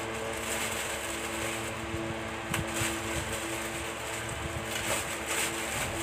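Plastic shirt packaging rustling and crinkling in bursts as it is opened by hand, over a steady motor hum.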